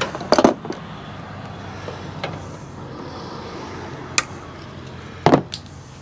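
Hands working wire loom and a zip tie on a car's engine-bay wiring. There are a few short clicks and rustles, the loudest right at the start and again about five seconds in, over a low steady hum.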